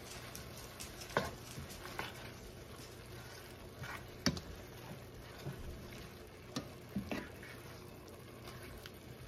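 A silicone slotted spoon stirring beef and onions in a stainless steel skillet, with a handful of sharp knocks against the pan, the loudest about four seconds in, over a low sizzle of the meat cooking in its juices.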